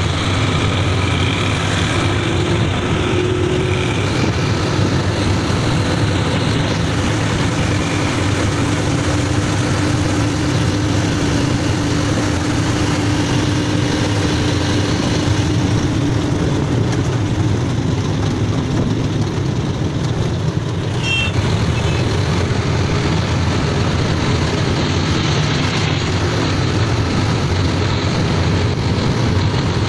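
Auto-rickshaw engine running steadily under way, mixed with wind and road noise, heard from inside the open-sided cab.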